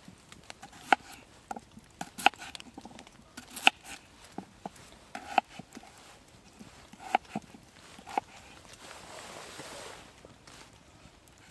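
Knife cutting through raw red-skinned potatoes and knocking down onto a wooden log-slice board: several sharp taps, one every second or two, with lighter ticks between.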